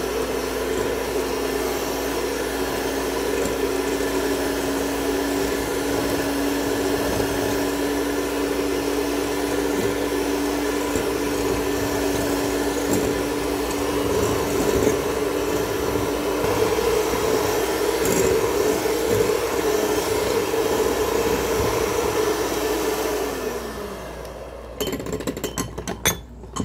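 Kenwood electric hand mixer beating butter in a glass bowl, its motor running at a steady pitch with the beaters churning. Near the end the motor winds down with a falling pitch and stops, followed by a few sharp knocks.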